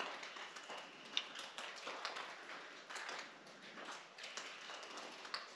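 Faint scattered clicks and taps of an air rifle being handled at the bench, the magazine and cocking lever being worked, with no shot fired.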